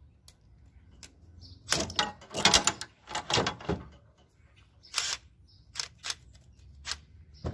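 Metal clanking and rattling as a three-jaw gear puller is handled and taken off a small engine's shaft coupler, loudest in a cluster about two to four seconds in, followed by a few separate sharp clicks of an impact wrench and socket being set against the coupler.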